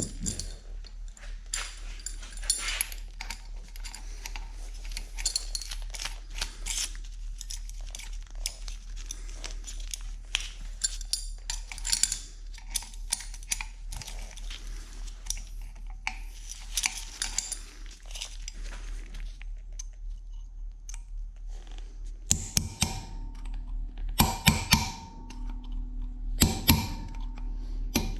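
Steel bearing and spindle parts of a Bridgeport mill head being handled on the bench: a long run of light clicks and taps, then from about 22 seconds in several sharper metal clinks that ring briefly. A low steady hum runs underneath.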